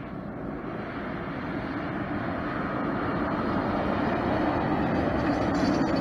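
Semi truck approaching and passing close by: diesel engine and tyre noise building steadily, loudest just before the end as it goes past.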